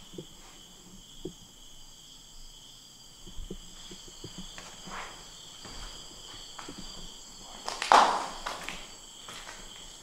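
Slow footsteps on a debris-strewn floor, with a steady high chirring of crickets in the background. About eight seconds in comes a single louder crunch.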